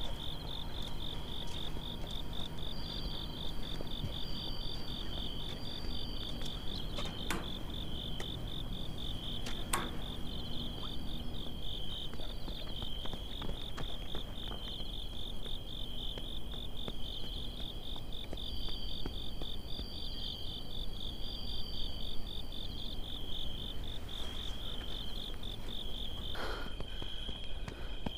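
Crickets chirping steadily, an even pulsing trill, with a second, higher chirping joining in twice for a few seconds.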